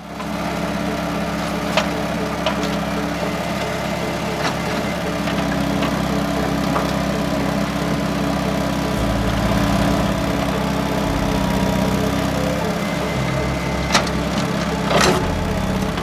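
A small engine running steadily, its low hum shifting pitch about nine seconds in and again near the end, with a few scattered clicks and knocks.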